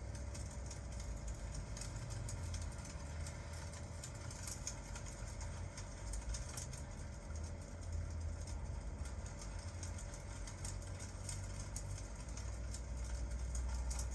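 Crackling fireplace with rain: many small, sharp pops scattered over a steady low rumble that swells and eases.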